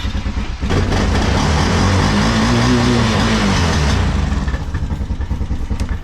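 Honda Recon ATV's single-cylinder four-stroke engine running just after a start. It is revved once, rising and falling in pitch between about two and four seconds in.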